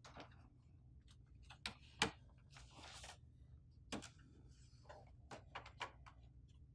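A stack of plain paper being handled and slid into the rear input tray of an HP DeskJet 3634 printer: light taps and clicks of paper and plastic tray, the sharpest about two seconds in, a brief soft paper rustle around three seconds, and a cluster of small ticks near the end.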